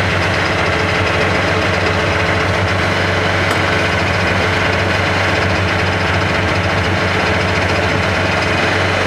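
Type 87 self-propelled anti-aircraft gun's air-cooled V10 diesel engine idling steadily while the vehicle stands still.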